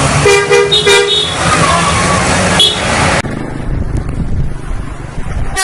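Bus's multi-tone 'telolet' musical horn sounding two quick bursts of notes in the first second and a half, then one short toot a little later, over loud street noise.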